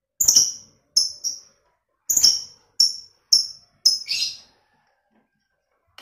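Lovebird giving a string of sharp, high-pitched chirps, about eight in four seconds, the last one longer and harsher.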